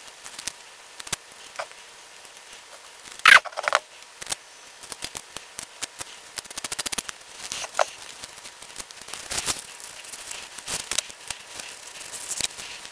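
Green masking tape being pulled, torn and pressed onto a cast-iron vise body by nitrile-gloved hands: a string of crackles, clicks and short rips. The loudest rip comes about three seconds in, and a quick run of ticks follows about halfway through.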